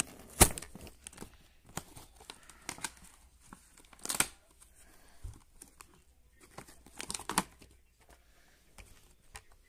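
Cardboard and clear plastic toy packaging being torn and handled by hand: irregular rips and crinkles, the loudest about half a second in, with more bursts around four and seven seconds in.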